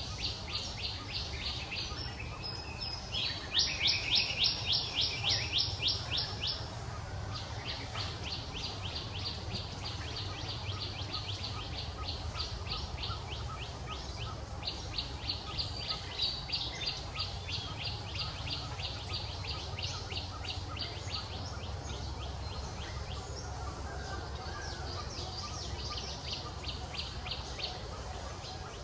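Rapid, evenly repeated high chirps, about five a second, in long runs with short breaks, loudest a few seconds in, over a steady low rumble.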